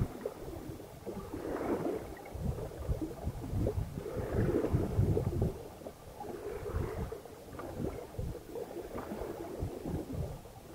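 Wind buffeting the microphone over water rushing and splashing along the hull of a sailing yacht under way, coming in uneven surges.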